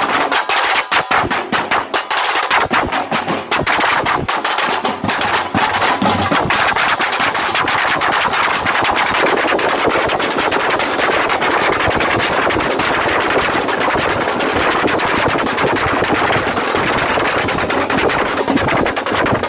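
Several stick-beaten side drums playing a fast, dense rhythm of rapid strokes. The separate strokes in the first few seconds merge into a denser roll later on.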